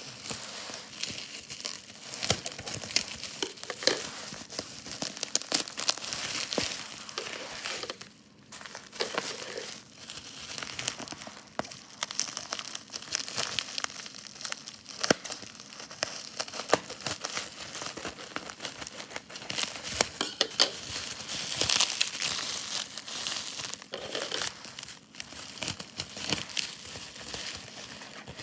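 Packaging wrap crinkling and tearing as a vinyl LP package is unwrapped by hand: dense rustling with many sharp little clicks, pausing briefly about eight seconds in.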